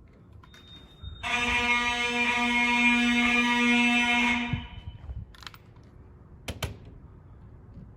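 Vintage FCI fire alarm horn sounding one steady, buzzy blast of about three seconds during an alarm test, then cutting off; a couple of sharp knocks follow.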